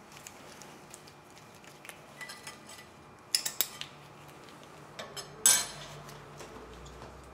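Small metal brake pad hardware clips clinking and rattling as they are handled at a caliper bracket: a few sharp clinks about three and a half seconds in, and a louder clatter about five and a half seconds in.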